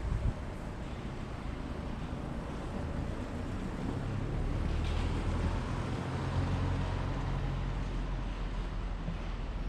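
Steady low mechanical rumble with a noisy hiss, like a vehicle running, swelling somewhat louder about four seconds in.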